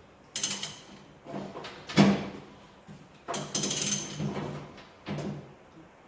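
Irregular metallic clanks and scrapes of steel being handled and worked, the sharpest about two seconds in, over a steady low hum.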